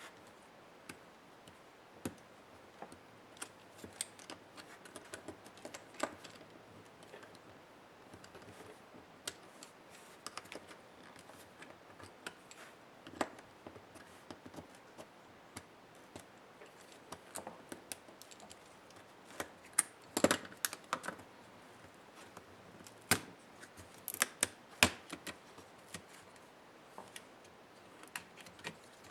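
Irregular clicks, taps and light knocks of small tools and plastic and metal parts of an HP ProBook 430 G6 laptop being handled during disassembly, with a few sharper clicks about two-thirds of the way through.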